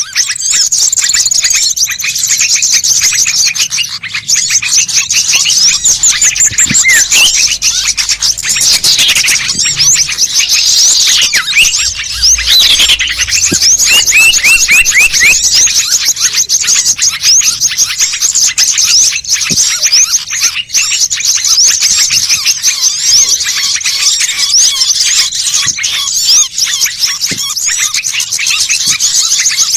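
Dense, continuous chattering of many small birds: rapid high-pitched chirps and twitters overlapping without a break, used as a bird-lure call. Lower, falling whistled notes join in about a third of the way through.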